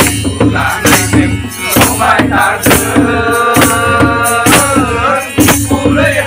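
Live folk music: a harmonium playing with men singing along over a steady percussion beat.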